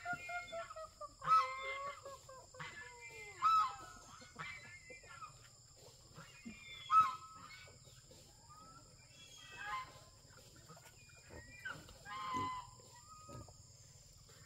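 Farm animals calling repeatedly: two long, slowly falling calls in the first few seconds, then shorter calls every couple of seconds.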